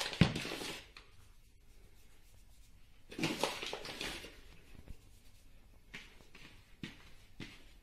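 Kitchen handling sounds: a plastic mixing bowl set down on a stone countertop with a thump, a brief rustle of flour being scattered over the counter, then light knocks and rustling as the bowl is lifted and tipped to turn the risen dough out.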